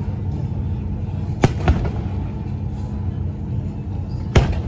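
Fireworks bursting: a sharp bang about a second and a half in, a smaller one just after, and another loud bang near the end, over a steady low rumble.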